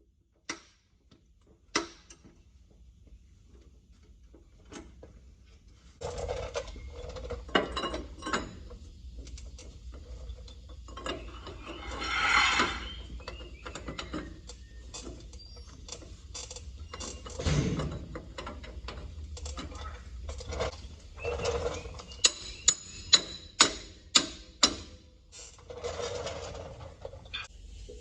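Hand-tool work on a heavy truck's front suspension: scattered sharp metal clicks and clanks, a short hiss about twelve seconds in, and a quick run of loud clicks near the end.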